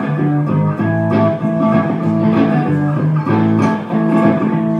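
Electric guitar strumming chords through an amplifier in an instrumental break, with no singing.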